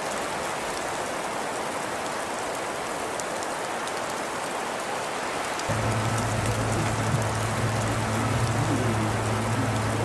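Steady hiss of wet precipitation falling, with faint scattered drop ticks. About five and a half seconds in the sound changes and a low steady hum joins the hiss.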